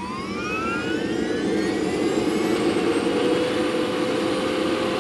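Toyota GTV's two-shaft gas turbine engine starting up. A rising whine spools up over a rush of air and levels off into a steady high whine about three seconds in.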